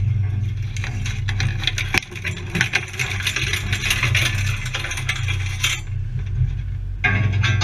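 Land Rover engine running with a steady low drone under constant rattling and clattering from the vehicle as it drives over rough ground. The rattling stops for about a second roughly six seconds in, then starts again.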